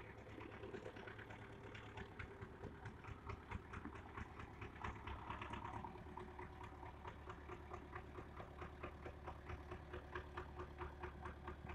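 Farm tractor's diesel engine running as the tractor drives up, heard faintly as an even, rapid chugging.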